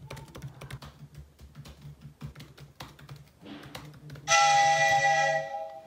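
Fast typing on a laptop keyboard, a steady patter of key clicks. About four seconds in, an iPhone's ringtone starts over it, a loud chiming tone held for about a second: an incoming call.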